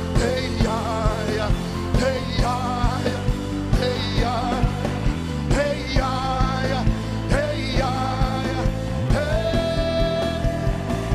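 Live gospel worship music: a band with a steady drum beat about twice a second and a bass line, under a singing voice that holds one long note about nine seconds in.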